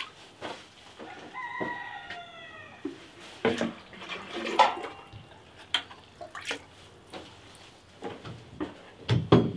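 A plastic chick waterer is dipped and filled in a five-gallon bucket, with water sloshing and dripping and several sharp plastic knocks. About a second in, a rooster crows in the background: one call falling in pitch.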